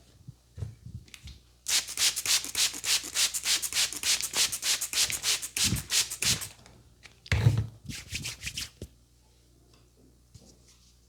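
A barber's hands rubbing briskly over the hair and scalp during a head massage, in fast even strokes of about five a second for several seconds. A shorter run of rubbing follows, starting with a dull thump.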